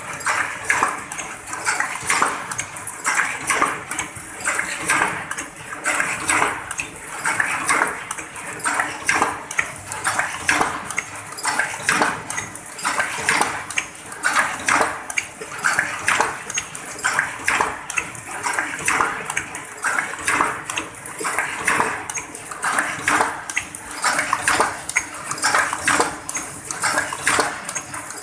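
Paper cup forming machine running: a dense, repeating metallic clatter from its indexing mould turret and forming stations, over a faint steady hum and a high hiss.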